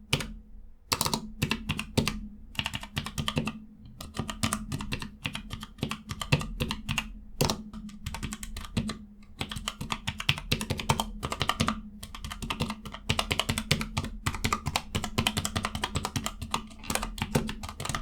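Keys being typed on a Cherry G84-4700 mechanical numpad with Cherry ML switches: quick, irregular keystroke clicks, with short pauses about a second in, about four seconds in and about twelve seconds in.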